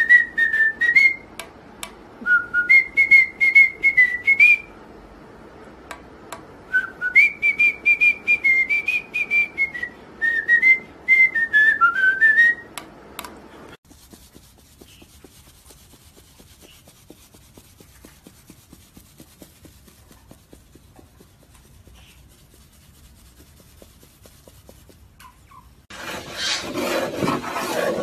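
A pet parrot whistling a tune in several phrases of short gliding notes with clicks between them, stopping about halfway through. Near the end comes a rapid run of taps and scraping, a parrot's beak pecking at a wooden door.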